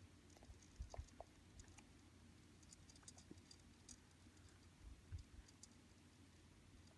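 Near silence, with faint, scattered small clicks and ticks over a low room hum.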